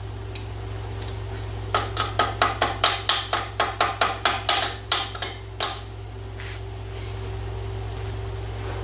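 Hammer tapping on metal, a quick run of about sixteen light blows at roughly four a second, working a cotter pin loose on an ATV's front suspension.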